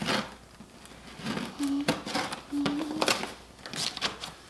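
Toy packaging being unwrapped by hand: a series of short, crisp rustles and rips of plastic wrap and cardboard.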